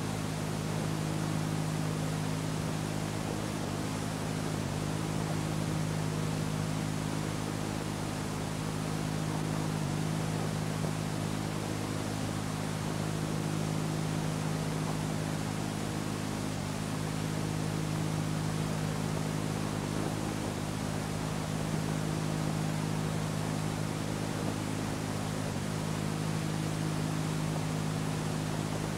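Steady low hum with several close pitches, over an even bed of hiss and no speech: the noise floor of an old recording running on with nothing spoken.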